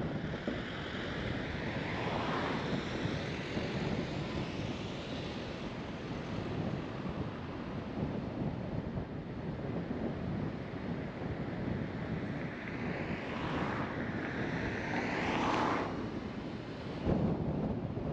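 Steady road and wind noise from a car driving, swelling twice, briefly a couple of seconds in and more strongly near the end. A short low thump comes just before the end.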